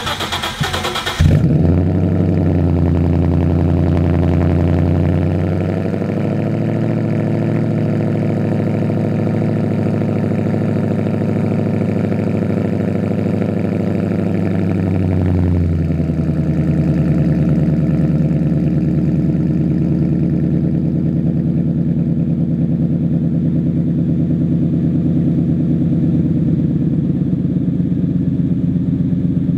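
2015 Ford Mustang GT's 5.0-litre V8 with an SLP Loud Mouth muffler delete starting up about a second in, then a cold-start fast idle that drops in two steps to a steady, low idle.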